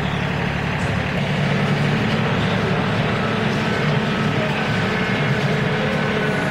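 John Deere compact tractor's diesel engine running steadily.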